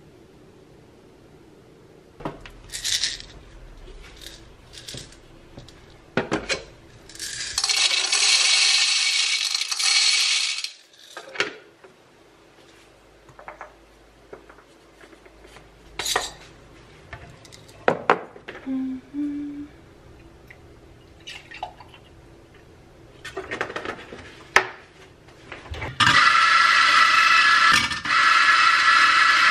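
Espresso preparation: clinks and knocks of a glass bean jar, metal portafilter and milk pitcher, with a loud steady whoosh for about three seconds near the start. Near the end a coffee grinder runs steadily for about three and a half seconds, grinding into a portafilter held under its spout.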